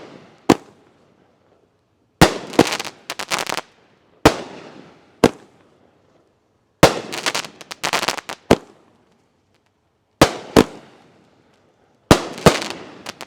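A 350-gram consumer firework cake (Dominator Sky Diamond) firing its shots. Sharp bangs come singly and in quick clusters every second or two, each trailing off briefly.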